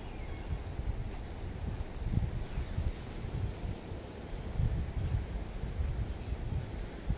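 A cricket chirping steadily, about two short high chirps a second, over a low rumble.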